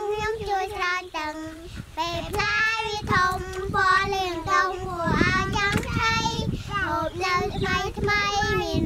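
A little girl singing unaccompanied, a steady run of short sung syllables that stay close to one pitch.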